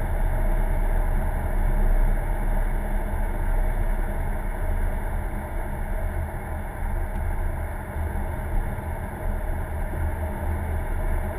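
Car driving at a steady speed, heard from inside the cabin: engine and road noise make a steady low rumble.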